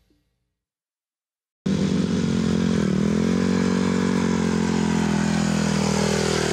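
Silence, then a motocross bike's engine cuts in suddenly about a second and a half in and runs steadily. Its pitch dips briefly, then climbs slowly as the bike rides up close.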